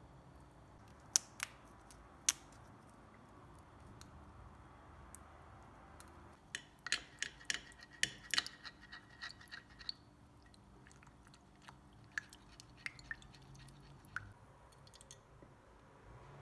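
Faint, irregular clicks and taps of kitchen utensils handling the syrup ingredients: a few sharp taps near the start, a busy run of clicking about six to ten seconds in, then scattered taps.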